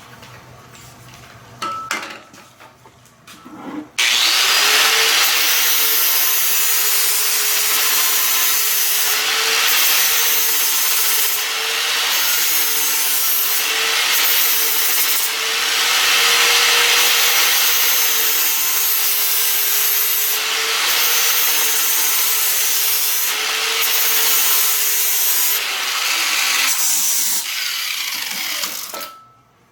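Angle grinder with a flap disc sanding a steel socket bright: the motor starts about four seconds in, runs with a steady whine under the rough scouring of the disc on the metal, then winds down with a falling whine near the end. A short knock comes about two seconds in, before the grinder starts.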